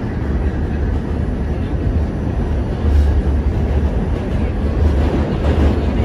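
Steady low rumble of a moving vehicle, with a noisy haze above it and no clear breaks.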